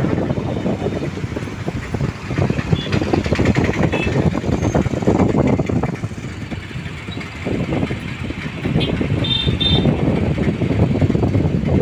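Road traffic passing, a rumbling that swells and fades as vehicles go by, with a couple of short, high horn beeps about nine seconds in.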